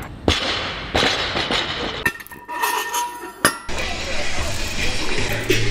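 Intro sound effects under a logo animation: several sharp hits with a glassy, ringing clink. About halfway through, music with a steady bass line comes in.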